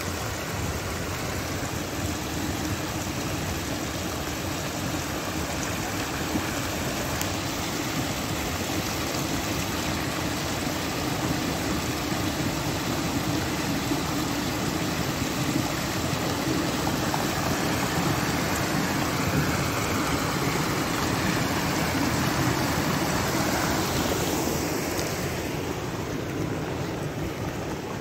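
Muddy flash-flood water rushing and spreading over gravel in a steady rush. It swells slightly past the middle and thins a little near the end.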